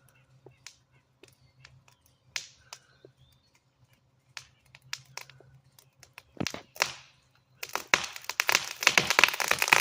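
White ash tree cracking as it is felled: scattered sharp snaps of wood fibres giving way, coming louder and closer together, then a dense run of cracking and crashing from about eight seconds in as the tree comes down.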